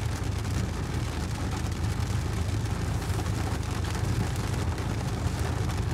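Heavy rain drumming on a car's roof and windscreen, heard from inside the car as a steady, dense hiss over a deep rumble.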